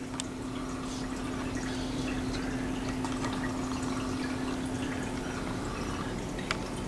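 Room tone: a steady low hum over background hiss, the hum stopping about five and a half seconds in, with a few faint clicks and one sharper click near the end.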